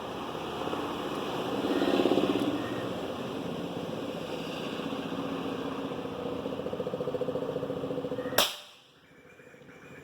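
A single air rifle shot, one sharp crack about eight seconds in, over steady outdoor background sound.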